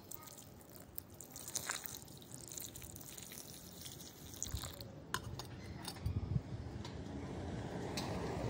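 Water poured from a small brass pot splashing and dripping onto a potted plant and its soil, over the first four seconds or so. A low rumble follows in the second half.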